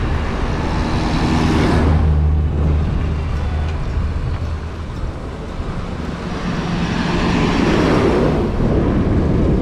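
Motorcycle on the move: an engine running low and steady under wind rushing over the microphone, the wind swelling twice.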